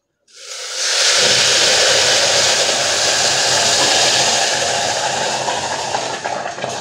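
Boiling water poured into a pressure cooker onto hot, freshly fried rice, hissing and sizzling loudly as it turns to steam. The hiss swells up within about a second, holds, and slowly dies away near the end.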